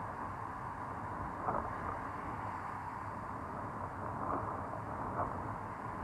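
Surf on a sandy beach: small waves breaking and washing in, a steady rushing noise with a couple of brief louder moments.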